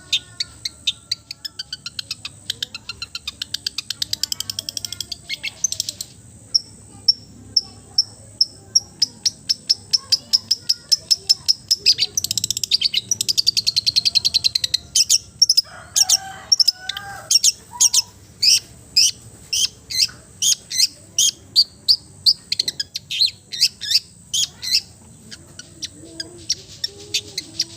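Songbird giving a long series of sharp, high chirps, about two to three a second, packed faster around the middle, over a steady high-pitched tone.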